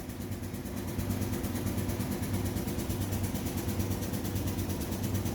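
An engine running steadily at an even speed, a little louder from about a second in.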